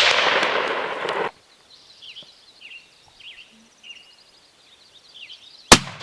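A loud rushing noise cuts off abruptly about a second in; small birds then chirp in short falling notes, and a single very loud, sharp gunshot cracks near the end, the rifle shot at the bear.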